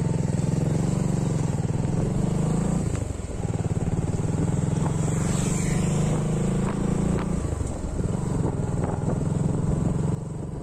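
Motorcycle engine running steadily close by, with brief dips about three and eight seconds in. The level drops suddenly near the end.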